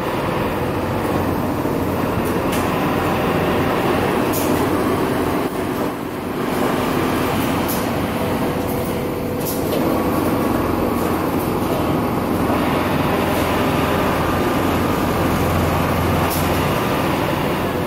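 Richpeace CNC automatic template sewing machine running as it stitches a collar, a steady mechanical drone with a few sharp clicks, amid the noise of other factory machinery.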